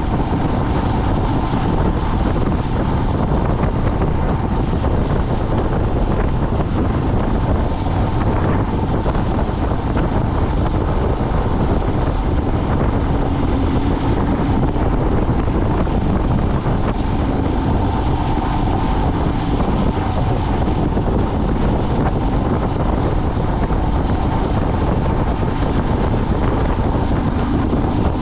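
Vehicle driving steadily: a continuous drone of engine and road noise, with wind buffeting the microphone and a faint engine hum that comes and goes.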